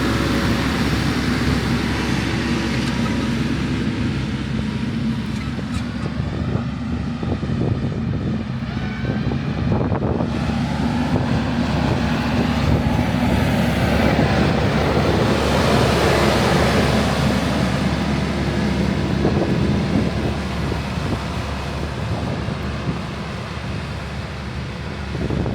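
TYM 574 compact tractor's diesel engine running steadily while plowing snow, with wind buffeting the microphone.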